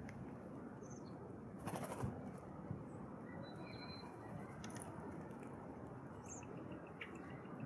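A Steller's jay flying off from the ground with a brief rush of wing flaps about two seconds in, followed by a few short, faint, high bird chirps over a steady background hiss.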